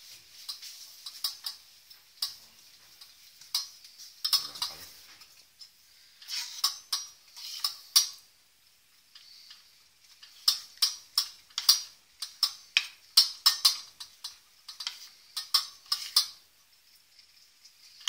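Metal spoon scraping and clinking against a stainless steel bowl while stirring melting chocolate. The strokes come in runs of quick scrapes, with a pause of about two seconds near the middle.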